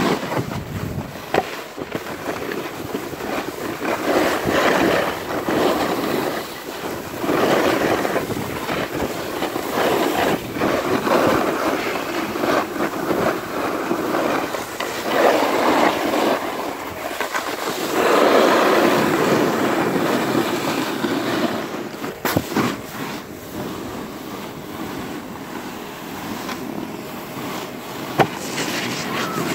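Wind rushing over the microphone and the scrape and hiss of snowboard edges on packed snow while riding downhill, swelling and fading with speed. Near the end, a sharp knock as a snowboard lands on a rail.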